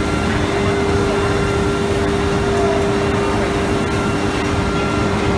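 Automatic tool-change CNC wood router running: a steady mechanical noise with one steady whine, no breaks or changes.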